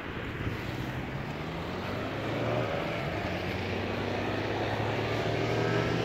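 A motor vehicle's engine humming steadily, growing louder as it approaches, its pitch rising slightly over the last few seconds, over background street noise.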